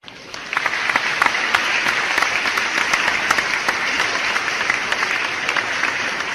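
Crowd applause: many hands clapping in a dense, even patter that swells in at the start and tapers slightly toward the end.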